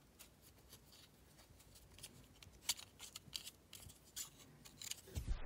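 Faint crinkling and scraping clicks of fingers working bunched PTFE tape against a brass compression fitting on copper pipe. A low bump comes just before the sound cuts off suddenly.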